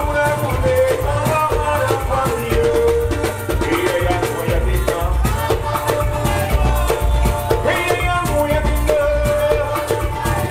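Loud live Garifuna dance music through a PA, with fast, dense drumming, heavy bass and a sung vocal line.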